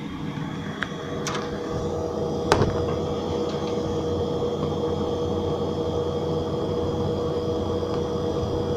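Computer fans running, the Cooler Master MWE White power supply fan among them, with a steady hum and whine that grows a little louder over the first three seconds. A few sharp clicks come in that stretch, the loudest about two and a half seconds in.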